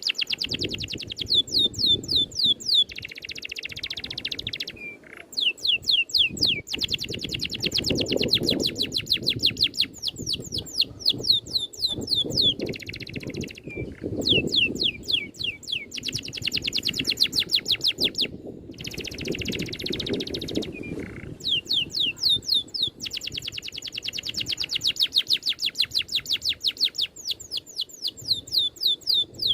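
Songbird singing in long rolling runs of rapid, sharply falling whistled notes, about ten a second, broken every few seconds by short warbled passages.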